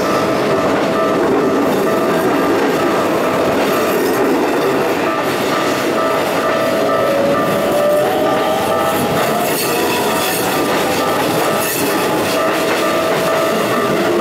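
Keikyu electric train passing slowly through a sharp S-curve over a level crossing, its wheels clattering on the rails with squeal from the curve. The crossing's warning bell rings steadily alongside.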